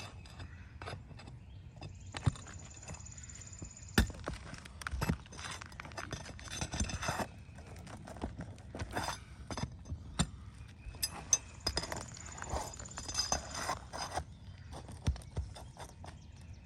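Roofing hand tools, a hatchet and a shingle nail remover, working on asphalt shingles: irregular sharp knocks and taps with scraping in between as nails holding a shingle are loosened.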